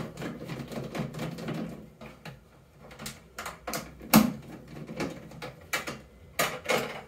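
Hand screwdriver turning out the screws of a microwave oven's lamp bracket: irregular small metal clicks and ticks, with one sharper knock about four seconds in.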